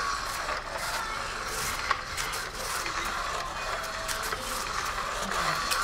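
Battery-powered cat toy running: a small motor whirs steadily while its wand sweeps under the nylon cover with a continuous rustling swish, broken by scattered light clicks.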